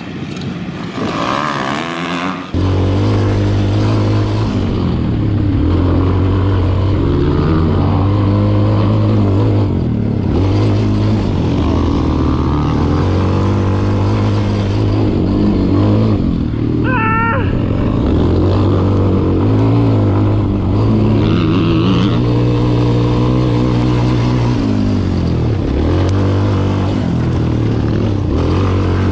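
Quad bike's engine heard from the rider's seat, cutting in loud about two seconds in and then revving up and falling back again and again as it is ridden hard round a dirt track. A brief warbling high tone comes through about halfway.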